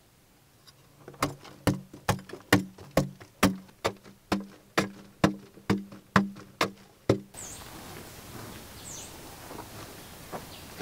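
A small metal digging tool chipping into hard-packed clay in a steady rhythm, a little over two strikes a second, each a sharp knock with a short low ring. About seven seconds in the strikes stop and open-air ambience takes over, with two short bird chirps.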